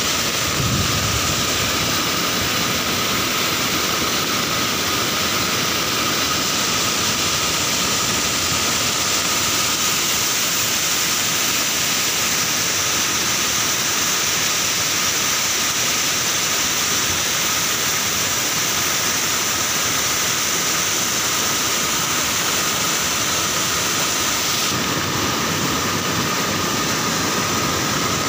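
A swollen, muddy river in flood pouring over a low weir, with a steady, loud rush of churning white water.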